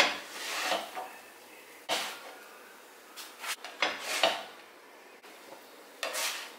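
A flat spatula scraping across a non-stick tawa as it slides under stuffed crepes and lifts them off one by one: a string of short scrapes and knocks at irregular intervals.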